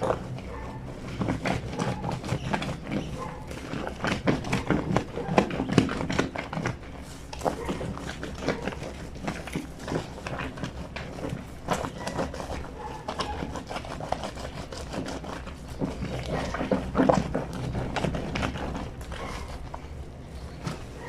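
Wet fleece sheets being hand-washed on a granite laundry sink: an irregular run of rubbing, scrubbing and soft thumps of soaked fabric against the stone.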